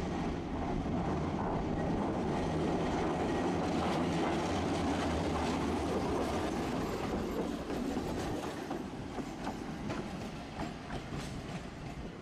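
Tosaden 600-series streetcar no. 608 passing close on street track: a rumble of steel wheels on rail over a steady electric motor hum. It builds to its loudest a few seconds in, then eases off, with a run of sharp clicks in the second half.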